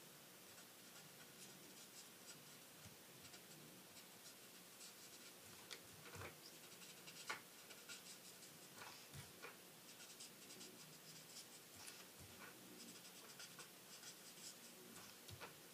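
Faint, irregular scratching of a marker tip colouring on cardstock in short strokes, with a few sharper taps, the clearest about seven seconds in.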